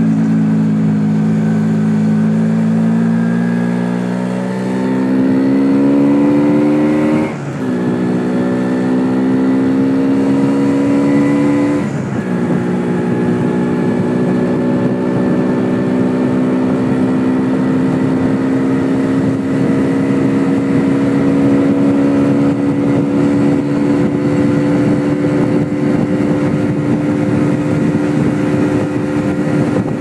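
MZ ETZ 250's single-cylinder two-stroke engine pulling under load on the road, its pitch rising through the gears with two upshifts, about 7 and 12 seconds in, then running steadily and slowly gaining speed. Wind noise on the microphone sits under it. The bike is jetted lean, with a 110 main jet where a 125 was needed, which the owner says kept it from running at its best.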